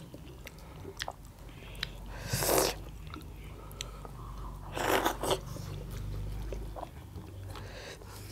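Close-miked eating by hand: chewing and small mouth clicks and smacks, with two louder noisy bursts about two and a half and five seconds in.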